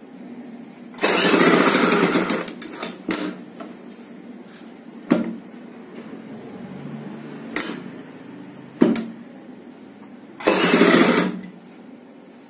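Sewing machine stitching a fabric strip onto a satin blouse back in two short runs of rapid stitches, about a second in and again near the end. A few short single clicks come between the runs.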